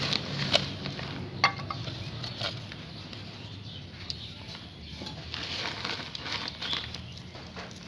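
Irregular light clicks and rattles of charcoal lumps being pushed together by hand on a concrete floor, with one sharper click about one and a half seconds in.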